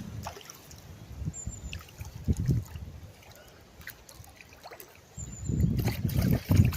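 Water splashing and trickling as a small hooked F1 carp is played on the pole, with wind buffeting the microphone in gusts that are strongest near the end.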